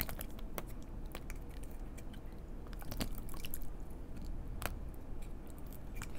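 Soft squelches and scattered sticky clicks of green slime being squeezed out through the neck of a small plastic slime bottle.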